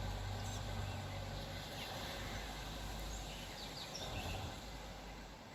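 Outdoor ambience: a steady hiss with a low rumble beneath, and a few faint, short bird chirps scattered through it.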